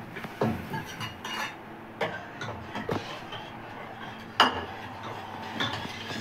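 A metal spoon scraping and clinking against a small metal pan and an aluminium pressure cooker while tempering is added to sambar and stirred in. Sharp knocks come about once a second, the loudest a little over four seconds in.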